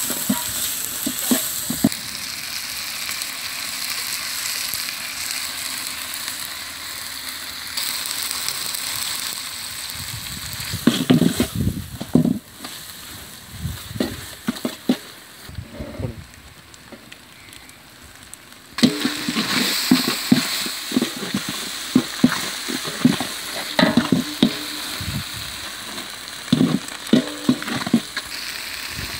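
Chopped goat testicles, onions, dried red chillies and curry leaves sizzling in oil in a large metal pot over a wood fire. A long metal ladle scrapes and clatters against the pot as the mixture is stirred. A little past the middle the sizzling drops away for about three seconds, then returns.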